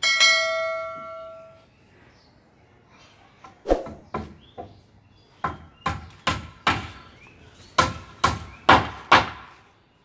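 A bell-like ding rings out and dies away over about a second and a half: the notification-bell chime of an animated subscribe button. From about three and a half seconds in, about a dozen sharp knocks or clangs follow in uneven groups.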